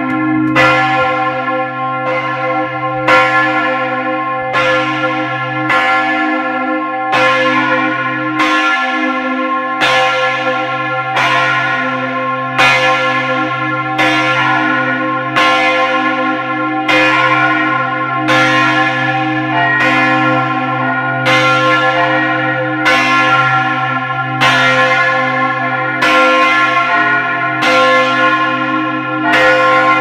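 Taylor-cast church bells swung full circle in their frame, sounding loud and close. Clanging strokes come a little more often than once a second over a deep, continuous hum.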